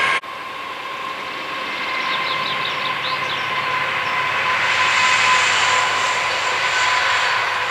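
Train running on the line with a steady whine and rolling noise that swells after a sudden break just at the start. A bird chirps a few times in the first half.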